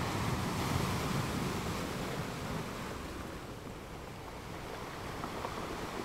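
Ocean surf washing on a shore: a steady rushing wash that swells over the first couple of seconds, eases off in the middle, then builds again as the next wave comes in.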